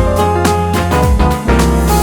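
Background music: upbeat keyboard tune with a steady beat.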